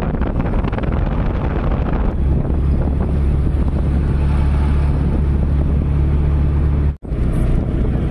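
Wind buffeting the microphone on a ride in an open-sided auto-rickshaw, over the steady low drone of its engine and road noise. The drone settles into a steadier tone about two seconds in, and the sound cuts out for an instant near the end.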